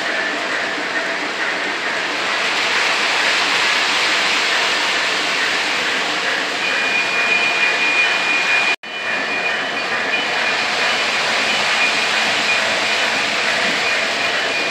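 O gauge model trains running on three-rail track: a steady rolling rumble of wheels and motors, with a thin steady whine joining about six seconds in. The sound cuts out for an instant about nine seconds in, then carries on.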